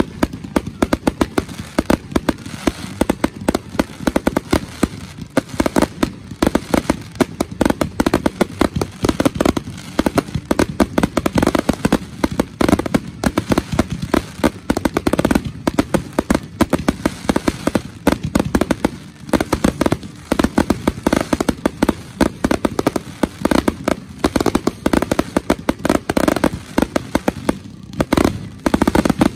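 Fireworks finale barrage: aerial shells bursting in rapid, overlapping bangs, several a second, with no letup.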